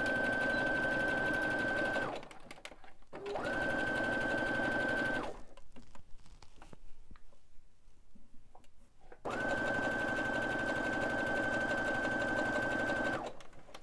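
Baby Lock Brilliant computerized sewing machine stitching a zigzag stitch in three runs: about two seconds, a short pause, about two more seconds, then a longer run of about four seconds near the end. Each run is a steady motor whine under the even chatter of the needle, with faint clicks in the pauses between runs.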